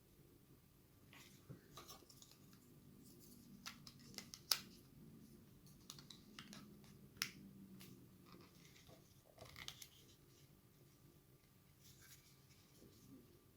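Light clicks and taps from a small plastic handheld recorder being handled as AAA batteries go in and its battery compartment is worked. The sharpest clicks come about four and a half seconds in and again about seven seconds in.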